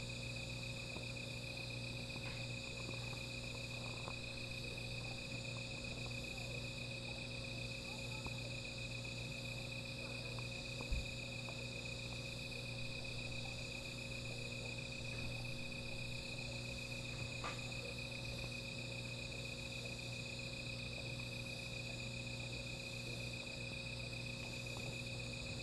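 Night insects such as crickets trilling steadily in several overlapping layers, some pulsing. Occasional faint ticks, a low steady hum underneath, and one short low thump about halfway through.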